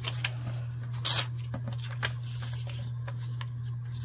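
Sheets of paper rustling and crinkling as paper strips are handled and folded, with a louder rustle about a second in, over a steady low hum.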